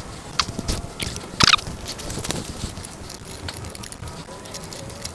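Scattered light clicks and knocks of hands and tools working on an e-bike's disc brake while its pads are being replaced, with one louder clatter about a second and a half in.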